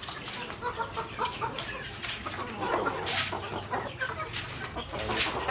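A flock of native Filipino backyard chickens (manok Bisaya) clucking, with many short, scattered calls from several birds.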